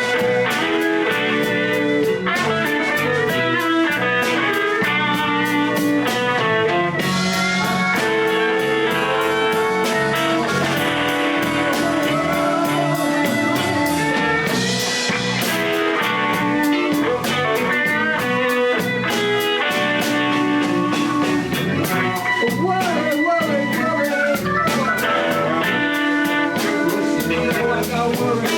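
A blues band playing a steady song, with guitar over a drum kit.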